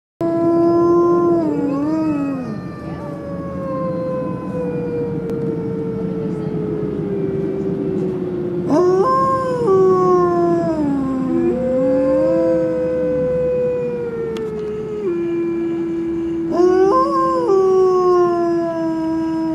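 Several gray wolves howling in chorus: long, overlapping howls, some held level and some slowly falling in pitch. A new howl breaks in with a steep rise about halfway through, and again near the end.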